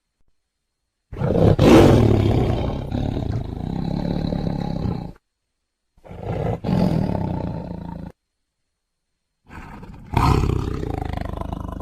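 Tiger roaring: three separate roars, the first about four seconds long and the loudest, a shorter one in the middle, and a third starting near the end. Each cuts off abruptly into dead silence.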